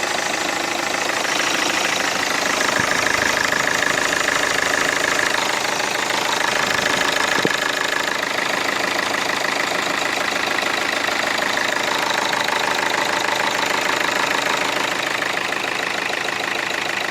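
Peugeot 307 2.0 HDi four-cylinder diesel idling steadily with a rapid knock from a fuel injector. The owner links the knock to a freshly replaced injector copper sealing washer and plastic insert.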